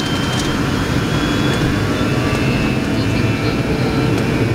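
Cabin noise of a McDonnell Douglas MD-82 rolling along the runway on its takeoff run: its rear-mounted Pratt & Whitney JT8D turbofans running under power, a steady loud rumble with a faint high whine over it.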